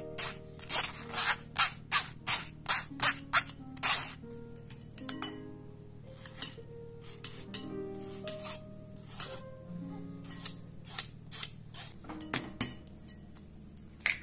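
Metal spoon scraping mashed boiled potato through a fine wire-mesh strainer, short rasping strokes about twice a second, thinning to scattered strokes after about four seconds. Soft background music plays underneath.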